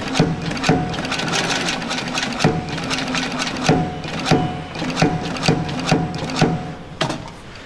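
Double-thread seated inseam sewing machine stitching a leather shoe welt: a sharp mechanical knock with each stitch, about one to two a second at uneven spacing, over a steady motor hum. The knocks get fainter near the end.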